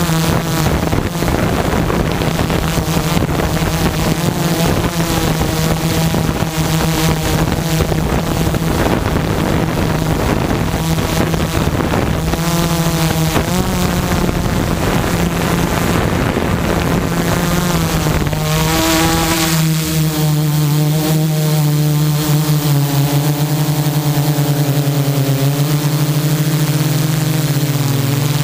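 Multirotor drone's electric motors and propellers humming steadily, picked up by the drone's own camera microphone, with wind rushing over the microphone. About 19 seconds in the wind noise falls away and the motor hum stands out clearly, its pitch wavering slightly.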